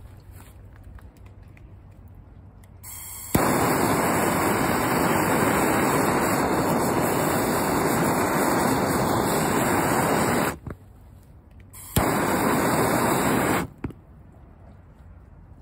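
Handheld blowtorch lit with a click about three seconds in, its flame giving a loud, steady hiss for about seven seconds. It cuts off, then is lit again with a click and hisses for under two seconds more. The flame is melting the end of a synthetic braided rope to seal it.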